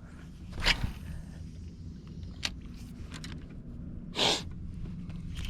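Steady low hum of a boat motor, with two short swishing sounds, one about a second in and one near the end, and a few faint ticks.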